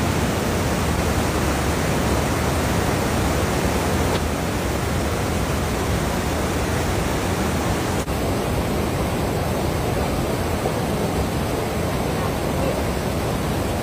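Muddy floodwater of a swollen river rushing over and around a low concrete bridge: a loud, steady rush of water, with a brief break about eight seconds in.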